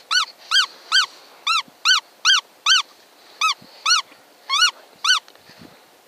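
A hand-pumped mouse-squeak predator call: a string of about a dozen short, high squeaks, each rising and falling in pitch, roughly two a second with a brief pause midway.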